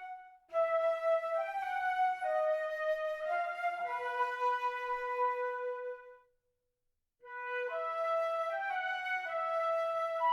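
Sampled orchestral flute from a virtual-instrument library playing a slow legato phrase of held notes that settles on a long low note. After about a second of silence, a similar phrase begins again.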